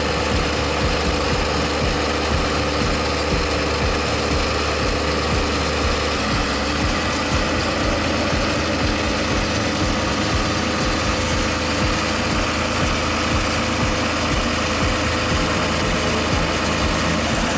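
A large engine running steadily, its sound changing about six seconds in.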